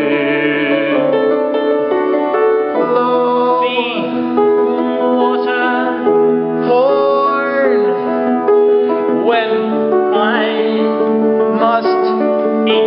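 Improvised song: keyboard chords held and changed every second or two under men's singing voices, which slide up and down in pitch several times.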